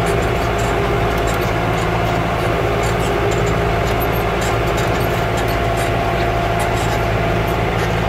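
Yanmar EG83Y tractor's diesel engine running steadily under load while pulling a plough through a paddy field.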